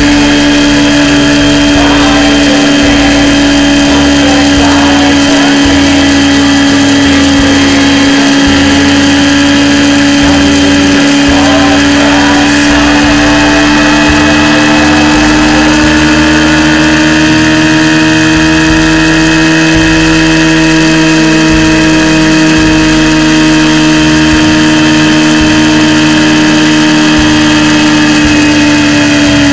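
Motorcycle engine running at steady cruising revs, heard from the riding bike itself with wind buffeting the camera microphone. The engine note climbs gently through the middle and eases off right at the end.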